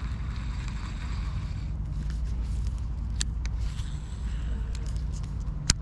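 Baitcasting reel cranked in a short retrieve over steady wind rumble on the microphone. The reeling stops after a second or two, and a few sharp clicks follow, the loudest just before the end.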